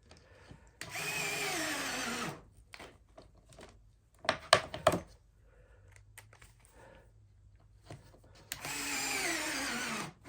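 A drill fitted with an Amana countersink bit cutting countersinks in wood: two bursts of about a second and a half each, one near the start and one near the end, with the pitch dropping as the drill slows. A few sharp clicks or knocks come about halfway between them.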